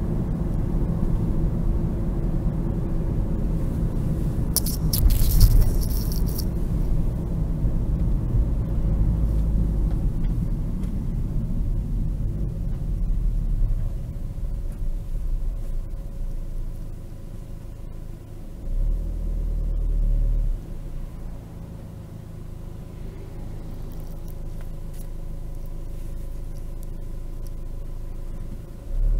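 Opel Vivaro's 1.9 CDTi turbodiesel engine running under way, with road rumble, heard from inside the cab. A short loud hiss comes about five seconds in; about halfway through the engine quietens to a lower, steady hum, with a brief swell a few seconds later.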